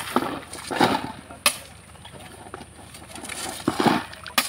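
A spade scraping and digging into loose gravel twice, with a couple of sharp knocks of stone and metal.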